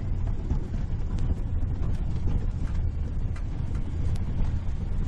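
Ford Ranger pickup running under heavy load in first gear, towing a gooseneck trailer carrying a backhoe over rough ground: a steady low engine rumble with many short rattles and knocks throughout.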